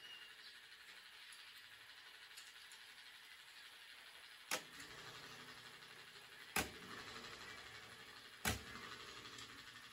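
Three sharp clicks or taps about two seconds apart, each with a short ringing tail, from small tools and tattoo-machine parts being handled at a workbench, over a faint steady hiss.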